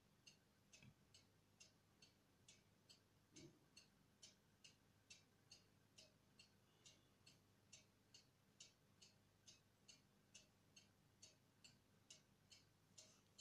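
Near silence with a faint, very even ticking, about three ticks a second, over a low steady hum. A soft thump comes about a second in and another about three and a half seconds in.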